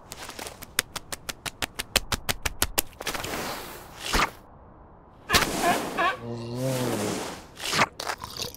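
Cartoon sound effects: a fast run of sharp clicks, about seven a second, for the first three seconds. Noisy swishes follow, with a short wavering voice-like call about six seconds in.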